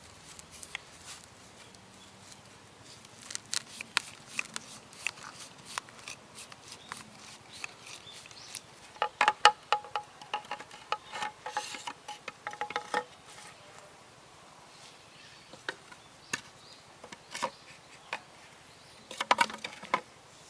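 Scattered clicks, taps and knocks of hard objects being handled. There is a denser clattering run with a brief ringing, metallic edge about nine seconds in, and another short flurry of clicks near the end.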